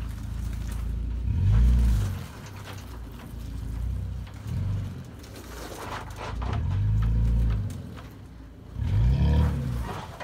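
Third-generation Toyota Tacoma's engine revving in about four short bursts of throttle, each rising and falling in pitch, with low running in between, as the truck crawls up and over rock.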